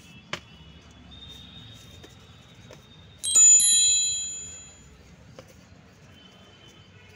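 A single bright, bell-like metallic ring about three seconds in, dying away over about a second and a half. Faint handling of torn cardboard comes with it.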